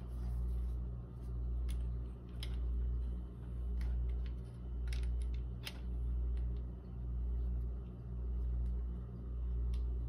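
A steady low hum that swells and fades about once a second, with a few light clicks and knocks as a hand PEX crimp tool and a brass elbow fitting on 1/2-inch PEX are handled and lined up for crimping.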